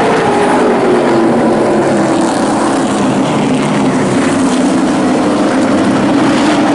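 A pack of race trucks running together at racing speed, their engines blending into one loud, continuous drone. The engine note falls over the first second or two, then holds fairly steady.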